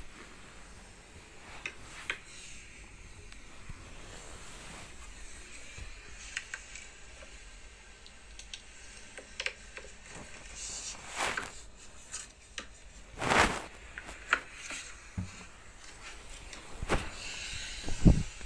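Handling noise of a phone being moved about and rubbed against fabric: scattered rustles, rubs and sharp clicks, with the loudest bumps a little past the middle and again near the end.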